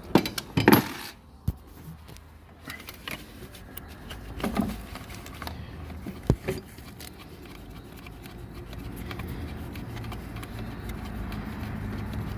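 Clinks and knocks of hand tools and metal engine parts while the timing chain tensioner is worked loose, with a sharp click about six seconds in. A steady low hum builds over the second half.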